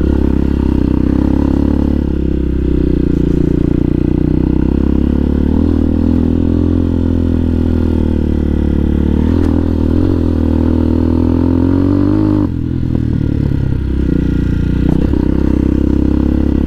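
2020 CSC TT250 dual-sport motorcycle's single-cylinder engine running steadily under way on a gravel track. Its pitch climbs slowly, then drops suddenly about twelve seconds in.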